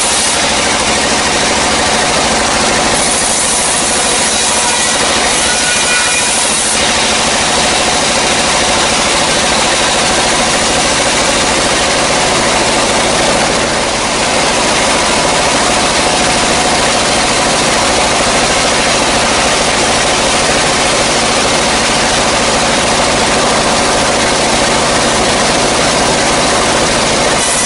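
Vertical sawmill band saw running and cutting through a dry log: a loud, steady sawing noise over the hum of the mill's motor, dipping briefly about halfway.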